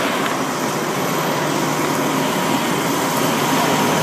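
A truck engine running steadily, with a faint thin steady tone over the noise.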